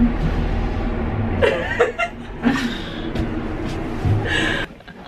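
Two women chuckling and laughing in short bursts, over a steady low hum that drops away near the end.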